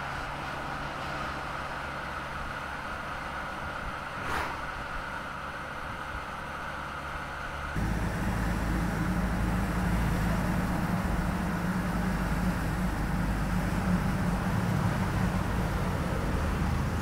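Mercedes-Benz eActros battery-electric truck driving with no combustion engine: a steady hum of tyres and electric drive, with a brief swish about four seconds in. After a sudden change about eight seconds in, it becomes a louder, deeper rumble as the truck comes close.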